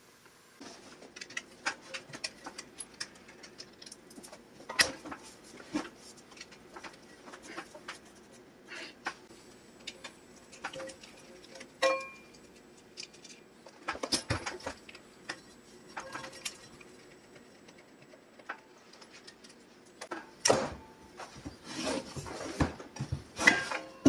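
Scattered clicks, taps and clanks of metal parts being handled as an industrial sewing machine clutch motor is taken apart, its pressure-plate housing coming off to expose the cork clutch. The clanks get louder and closer together near the end.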